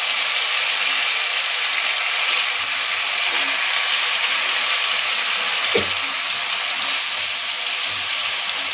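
Marinated chicken sizzling steadily in hot oil in a kadhai as more pieces are dropped in by hand, with a short knock about six seconds in.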